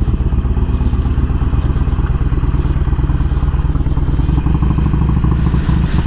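Harley-Davidson Forty-Eight's 1200 cc V-twin running through Screaming Eagle slip-on mufflers as the bike rolls at low speed. It makes a deep, steady pulsing exhaust beat.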